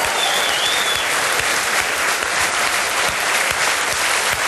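Audience applauding steadily, a dense even clapping, with a short wavering high whistle in the first second.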